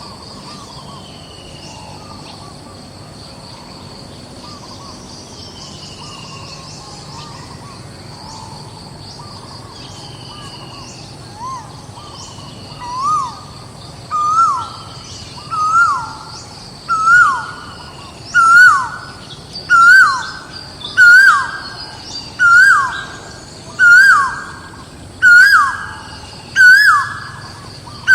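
A bird calling outdoors: a series of loud, evenly spaced calls about every second and a half, starting about eleven seconds in, each call climbing in pitch and louder than the last. Before it, fainter falling whistles and a steady high-pitched drone in the background.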